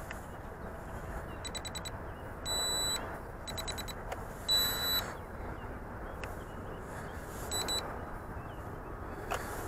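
Short, high electronic beeps from a JJRC X1 quadcopter and its transmitter being set up: rapid strings of beeps with two longer single tones, about two and a half and four and a half seconds in, and a last short pair near the end, over a steady low background hiss.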